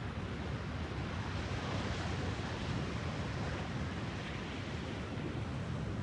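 Distant ocean surf: a steady wash of breaking waves with a low rumble underneath, the hiss swelling slightly about two seconds in.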